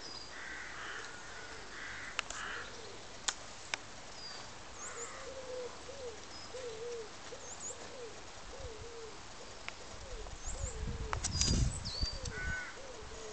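A dove cooing over and over in a slow, wavering series, with small birds chirping now and then.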